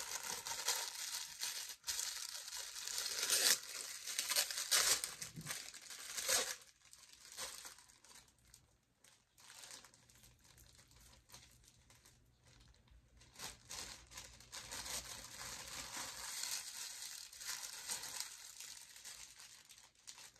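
Plastic packaging crinkling and tearing as it is pulled open by hand, in loud irregular rustles for the first six or seven seconds, then quieter intermittent rustling.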